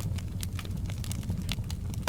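Wood fire crackling in a fireplace: a steady low rumble of burning with frequent small, irregular pops and snaps.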